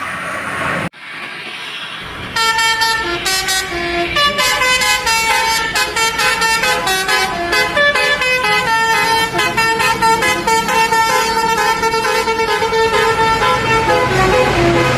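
Bus 'telolet' multi-tone horn playing a fast melody, a quick run of changing notes that starts about two seconds in after an abrupt drop to a quieter stretch.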